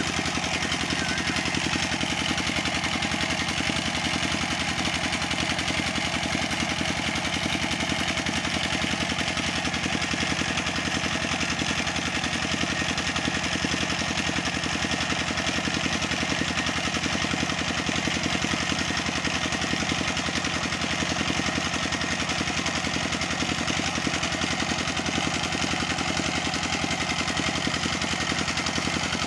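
A stationary engine running steadily at an even, fast beat, driving a tube-well pump, with water gushing from the outlet pipe and splashing into the pool.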